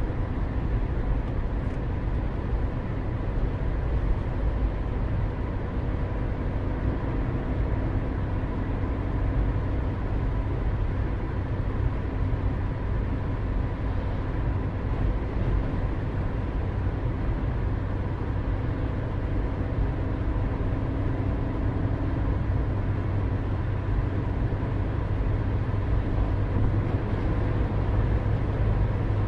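Steady outdoor background rumble with a few faint steady hum tones underneath, unchanging throughout.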